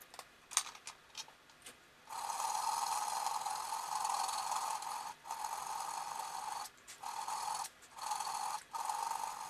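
A few light clicks, then about five rasping strokes of a file on the knife-handle fitting, the first about three seconds long and the rest shorter, shaping it for a snug fit.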